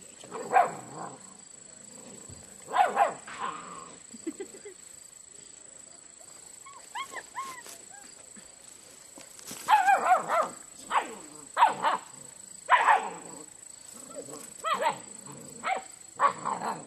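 German Shepherd puppies barking: short, high barks and yips, a few in the first seconds, then coming closer together from about halfway.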